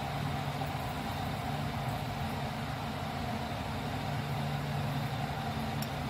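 Steady low machine hum, even throughout, with a faint click near the end.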